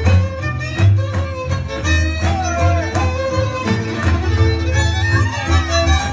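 Live Hungarian folk string band playing Szilágyság dance music: fiddle melody over a double bass pulsing in even beats.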